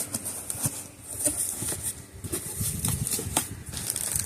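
A cardboard shipping package being handled and opened by hand: irregular rustling, scraping and light knocks of the box and its packing.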